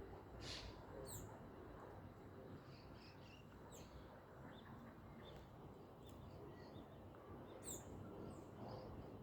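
Birds chirping faintly now and then, with a couple of quick high down-slurred notes about a second in and again near the end, over a low background hush.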